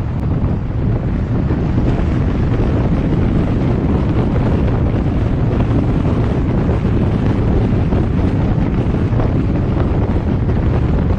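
Steady wind rushing over the microphone of a moving vehicle, blended with low road rumble.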